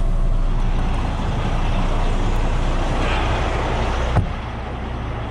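Heavy diesel tow truck engine running with road noise, heard from inside the cab as the truck drives. About four seconds in there is a sharp knock, and after it a slightly quieter steady engine rumble.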